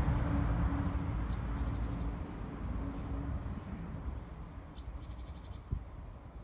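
Low rumble and steady hum of a distant Class 158 diesel multiple unit approaching, growing fainter and the hum dying away about halfway through. A small bird twice gives a short chirp followed by a quick trill.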